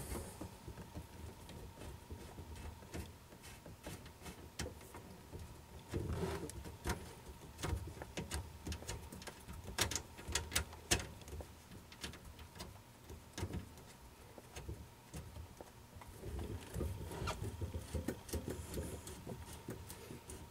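Scattered clicks, light knocks and rustling of hand work as a soft copper hydraulic steering line and its fitting are lined up and threaded on by hand.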